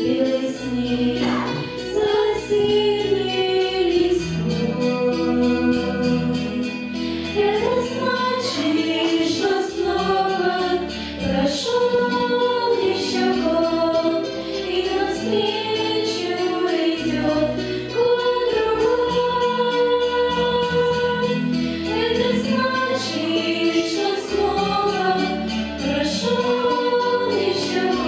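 Four young women singing a song together in harmony through handheld microphones, over an accompaniment that holds long, steady bass notes.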